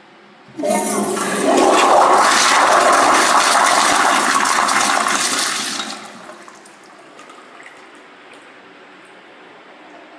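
1980s Eljer toilet flushed by a flushometer valve: a sudden loud rush of water starts about half a second in, grows louder a second later, then dies down about six seconds in.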